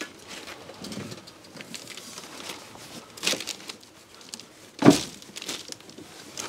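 Suspension parts being handled and moved: light knocks and rustling, with one loud clunk about five seconds in.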